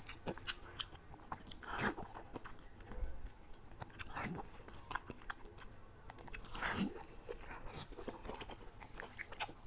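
Close-miked eating sounds: biting into and chewing sticky, sauce-glazed braised pork belly, with wet smacking and clicking mouth noises. The louder bites come about two, four and seven seconds in.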